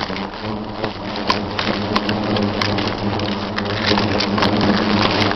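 A swarm of angry wasps buzzing close around the camera: a low, steady drone that grows louder, with many sharp taps scattered through it.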